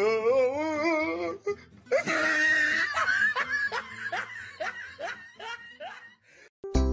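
A person laughing heartily: a long wavering laugh, then a run of short falling bursts that trail off and fade away.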